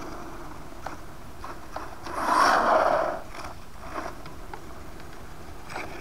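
Brushless-motor RC 4x4 truck on asphalt: one short, loud burst of motor and tyre noise as it accelerates away, about two seconds in, lasting about a second. Small clicks and rubbing from handling the transmitter are heard around it.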